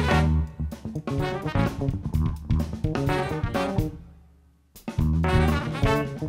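Live jazz band with saxophone, trumpet, electric bass and drum kit playing together. About four seconds in the music fades nearly to nothing, then the full band comes back in suddenly less than a second later.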